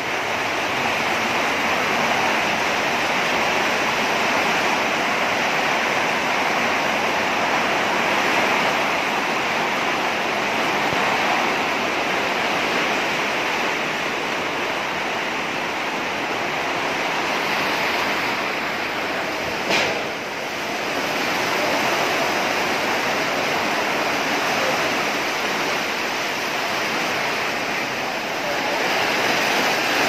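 Heavy storm rain falling hard in strong wind: a steady dense rush of noise with no let-up. One short sharp click or crack stands out about two-thirds of the way through.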